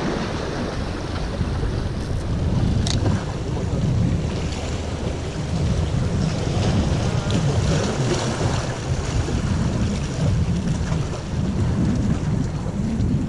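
Wind buffeting the microphone over the wash of small waves against the rocks of a jetty, a steady rumbling rush that swells and eases.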